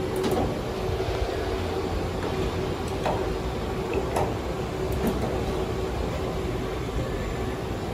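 Steady mechanical hum of a powered-up machining center, with a constant mid-pitched tone, and a few faint clicks and taps about halfway through as the angle head's tool shank is pushed into the spindle.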